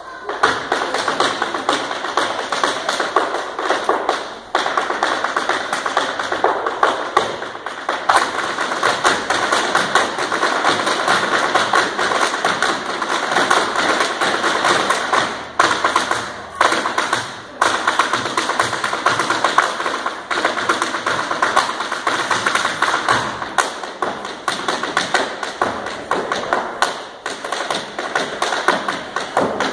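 Irish dance hard shoes striking a wooden floor: rapid, continuous tapping and clicking of heel and toe beats from several dancers at once, with a few brief gaps.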